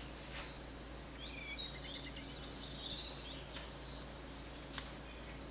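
Faint songbird chirps in the background: a few short high calls sliding up and down between one and three seconds in, then a quick run of repeated notes near the four-second mark, over a low steady hum. A single sharp tick sounds near the end.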